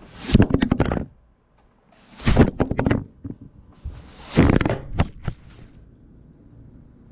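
Broom bristles sweeping across a wooden deck and scraping against the camera in three loud, scratchy strokes about two seconds apart, each with sharp knocks.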